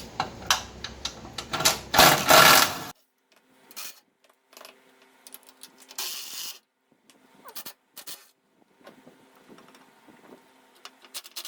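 Hand tools clicking, clanking and scraping on the generator's metal exhaust and frame as the exhaust is worked loose: irregular sharp clicks with louder scraping in the first three seconds, then an abrupt drop to sparser, quieter clicks.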